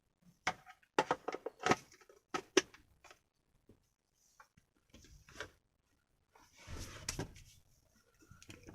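Plastic clicks and knocks as the parts of a portable 12-volt car vacuum cleaner are handled and fitted back together, with a short rustle about seven seconds in.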